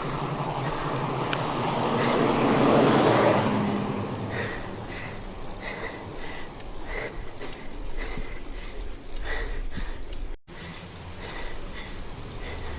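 A car passes close by, its road noise swelling and fading over the first few seconds, over steady wind rumble on the microphone. After it, fainter short ticks repeat every half second or so.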